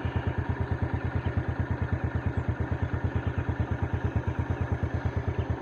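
Motorcycle engine idling steadily with a quick, even beat.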